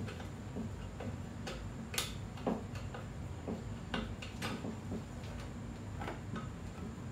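Phillips screwdriver tightening a small nut-and-bolt screw that holds a handle onto a glass jug: scattered sharp clicks and ticks at an uneven pace as the screw turns and the parts shift.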